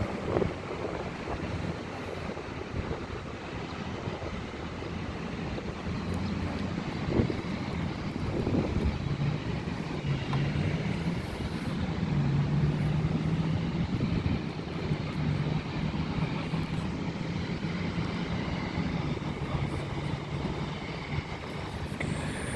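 Jet airliner engines running on the airfield as a steady rumble, with a low hum that rises a little in pitch about ten seconds in.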